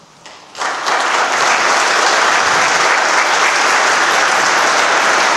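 Audience applauding, starting suddenly about half a second in and holding steady.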